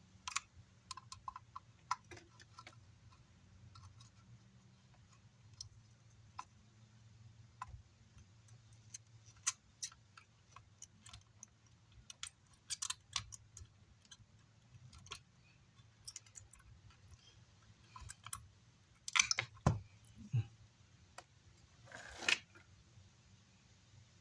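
Scattered small clicks and taps of soldering tools working on the amplifier's circuit board, over a faint steady low hum. Two louder brief scraping sounds come near the end.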